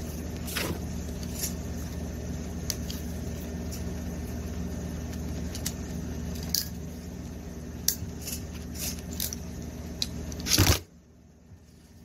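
Scattered small clicks of an RJ45 plug and crimping tool being handled, with a quick run of clicks and a louder crunch near the end as the crimper is squeezed. A steady low hum runs underneath and stops abruptly right after the crunch.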